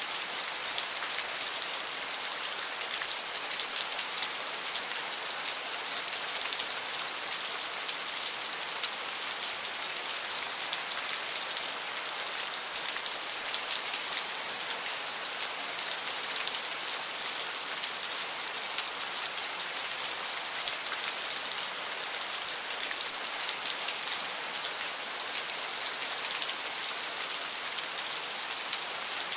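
Steady heavy rain: an even, unbroken hiss of countless drops pattering on a hard surface, with no change in strength.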